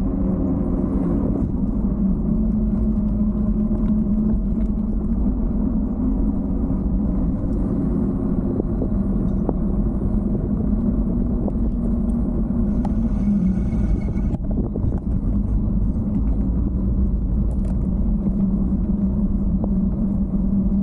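Riding noise from a bicycle picked up by a handlebar camera: a steady rumble of tyres on pavement and wind on the microphone, with a low steady hum underneath. About thirteen seconds in there is a brief higher whine lasting about a second and a half.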